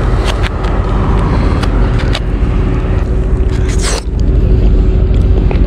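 Wind rumbling on the microphone, with light clicks and a scrape from a foam takeaway box being handled.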